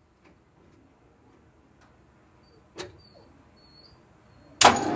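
Ford 302 V8 starting up near the end: after a few seconds of quiet with faint clicks and one sharper click, the engine bursts suddenly into loud running.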